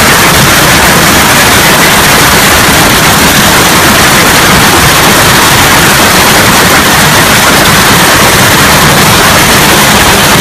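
Heavy hailstorm: a dense, steady roar of hailstones pelting down, very loud and near the recording's limit.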